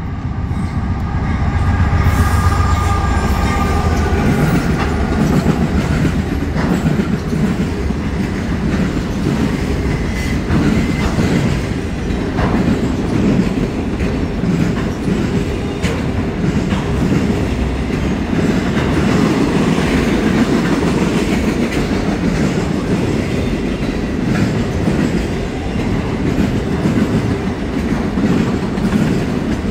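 Norfolk Southern freight train passing close by: the lead diesel locomotives go past with a deep engine rumble, loudest a couple of seconds in, while a horn chord fades out in the first few seconds. Then a long string of autorack cars rolls by with a steady rumble and clickety-clack of wheels over rail joints.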